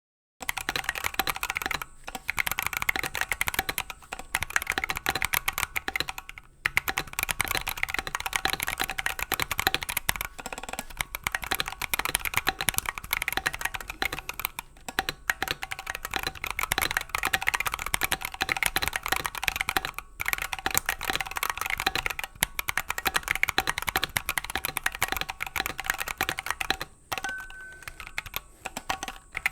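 Continuous fast typing on a stock Keychron Q1, a gasket-mounted aluminium mechanical keyboard fitted with Gateron Brown and Gazzew Boba U4T tactile switches: a dense run of key clacks broken by short pauses every few seconds.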